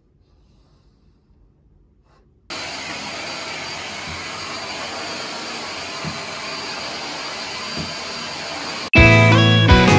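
Corded stick vacuum cleaner running steadily on carpet. It starts suddenly about two and a half seconds in, after quiet room tone, and guitar music cuts in near the end.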